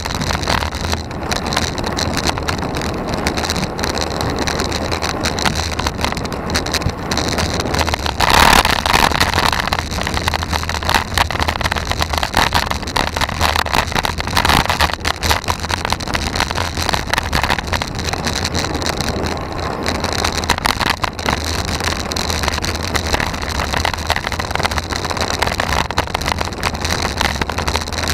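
Wind buffeting and a steady low rumble on a bicycle-mounted camera's microphone while riding a road bike uphill, with a louder gust about eight seconds in.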